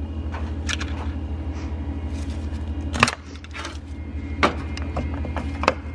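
A few sharp clicks and knocks of a rubber radiator hose and its metal retaining clip being worked off a plastic coolant fitting on a BMW E46 engine, the loudest about three seconds in, over a steady low hum with a fast even pulse.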